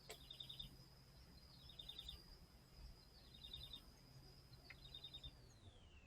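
Faint bird calling: a short trilled chirp repeated about every second and a half, four times. Under it is a steady thin high whine that slides down in pitch near the end.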